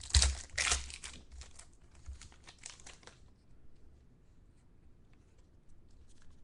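Plastic card-pack wrapper crinkling and tearing as a pack of trading cards is torn open, loudest near the start and fading out after about three seconds into a few faint handling ticks.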